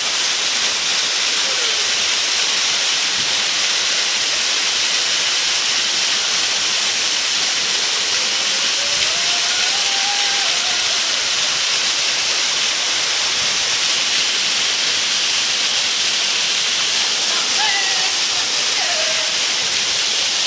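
Waterfall pouring into a rock pool: a loud, steady rush of falling and churning water.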